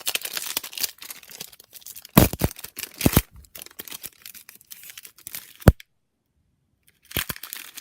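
Plastic wrapper of a trading card pack being torn open and crinkled by hand, with a few sharp handling knocks. The sound cuts out completely for about a second near the end.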